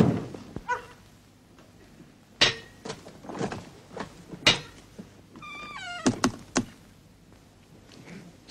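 A string of scattered knocks and thuds, with a short squeak a little past five seconds in that drops in pitch in a few steps.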